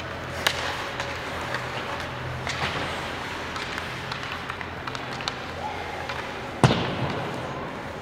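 Ice hockey play in a rink: scattered clicks and knocks of sticks and puck, a sharp crack about half a second in, and one loud bang that echoes in the arena about two-thirds of the way through, typical of the puck or a player hitting the boards.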